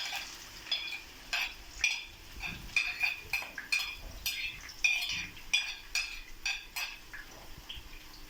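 A spoon stirring onions in hot oil, scraping and clinking against the pan in short ringing strokes about once or twice a second, stopping about seven seconds in.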